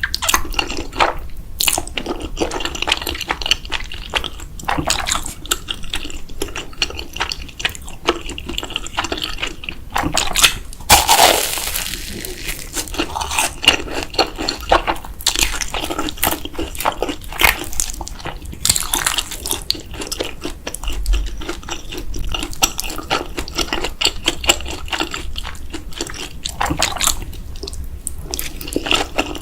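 Close-miked eating sounds of ramen: wet, irregular chewing and slurping of noodles and broth, with a louder, longer wet sound about a third of the way in.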